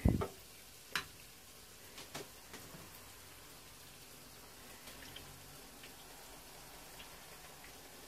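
A plastic spoon knocks against a plate and a glass bowl while filling is spooned onto an egg roll wrapper. There is one loud knock at the start, a sharper click about a second in, a few lighter clicks a second or so later, then faint handling ticks as the wrapper is folded.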